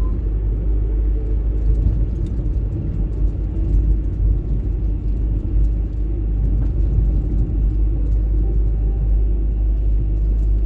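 Steady rumble of a car on the move: engine and road noise.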